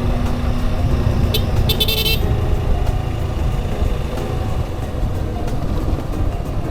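Suzuki Gixxer SF single-cylinder motorcycle engine running on the move, under a steady low rumble. A vehicle horn toots briefly twice, about one and a half to two seconds in.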